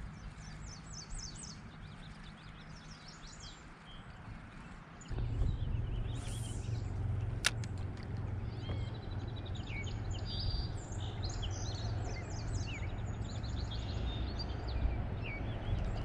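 Songbirds chirping and calling around a pond, over a low rumble of wind on the microphone that grows much stronger about five seconds in. A single sharp click sounds a couple of seconds after that.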